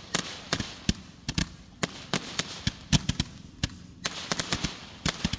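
Ground-fired consumer fireworks going off: a rapid, irregular string of sharp bangs and cracks, about four or five a second.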